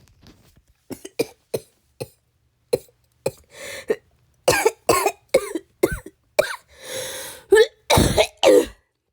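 A coughing fit: a run of harsh coughs, light at first and getting louder from about halfway through, with long noisy breaths drawn in between. A smoker's cough, which the cougher puts down to cigarettes.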